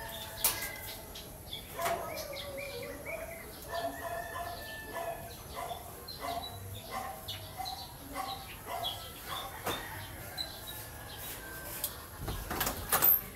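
Birds chirping in short, repeated calls, with a few sharp clicks and rustles from leafy branches being handled, the loudest cluster of them near the end.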